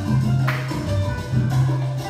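Latin dance music with a pulsing bass line and percussion, with a bright sudden accent about half a second in.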